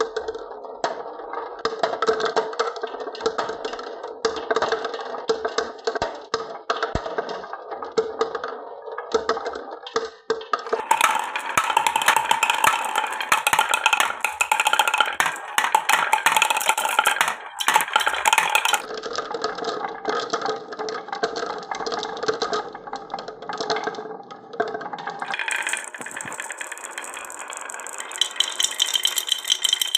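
Glass marbles rolling and clattering down a wooden marble run: a dense, continuous stream of clicks and rattles that changes character several times as the marbles move onto different sections of track, with a steady high ringing tone near the end.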